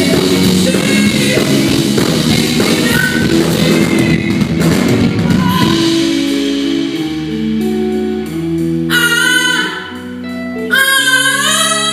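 A live band playing during a sound check: a dense full-band passage for about the first half, then the music thins to held chords over a bass line. A woman's voice comes in singing over it about nine seconds in, and again near the end.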